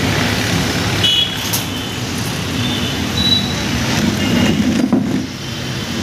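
Steady road traffic noise, with a couple of faint clicks and a few short high squeaks.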